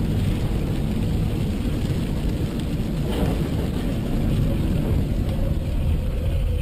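Steady low rumble of a car driving on a wet, rain-soaked road, heard from inside the cabin: tyre and road noise mixed with heavy rain.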